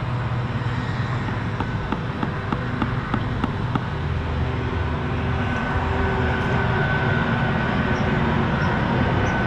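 Steady hum of traffic and machinery. In the first half there is a run of faint, evenly spaced light taps from a brick being tapped down under a mason's level, and a steady high tone joins about halfway through.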